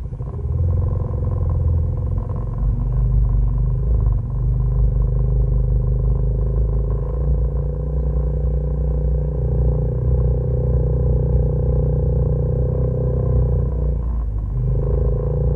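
ATV engine running steadily at low speed, close to the camera, with a brief drop in the engine note about fourteen seconds in before it picks up again.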